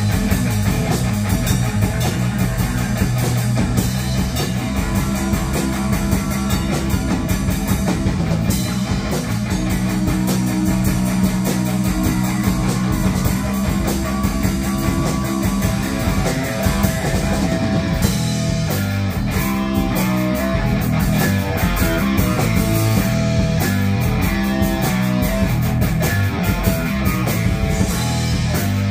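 A small rock band playing live: electric guitar, electric bass and drum kit together, at a steady level throughout.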